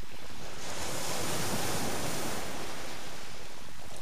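Sea surf breaking and washing on a shingle beach, one wave swelling up about a second in and fading away.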